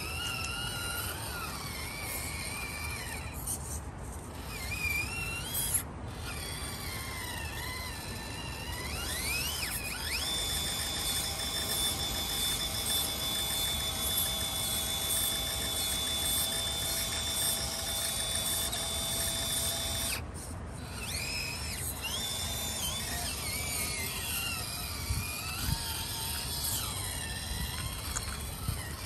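Small electric motor and gear train of an FMS FCX18 Chevy K10 1:18-scale RC crawler whining, its pitch rising and falling with the throttle. In the middle it holds one steady pitch for about ten seconds, and it briefly stops a few times.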